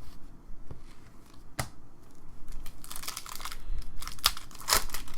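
A trading card pack wrapper being torn open and crinkled by hand, with a few sharp clicks and rustles as it is handled.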